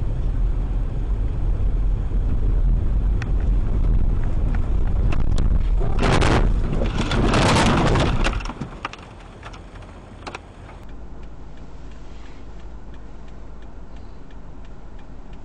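Dashcam audio inside a car on a snowy road: a loud steady rumble of road and wind noise, then about six seconds in the car ploughs off the road into deep snow, with a loud rushing crunch for about two seconds as snow sprays over the windshield. After a cut comes a quieter steady cabin hum with a few clicks.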